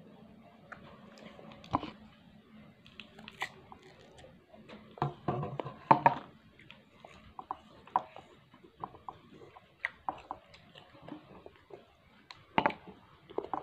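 Close-up mouth sounds of people eating pieces of mango: chewing, biting and lip smacks as scattered sharp clicks, with a louder, busier stretch about five to six seconds in.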